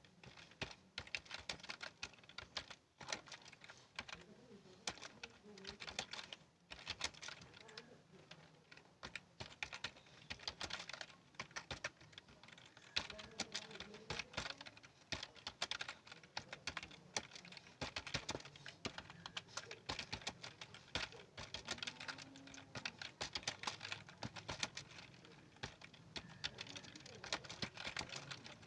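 Fast, continuous typing on a computer keyboard, many keystrokes a second, with two brief pauses a few seconds in.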